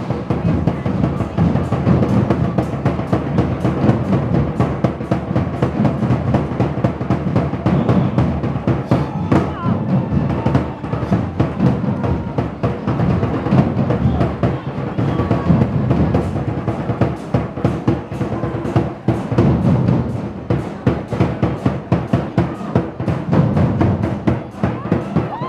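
Music driven by busy, fast drumming with bass drum and percussion, loud and continuous.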